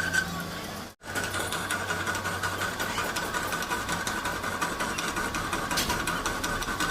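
A machine running steadily, with a fast fine clatter and a steady high whine. The sound drops out briefly about a second in.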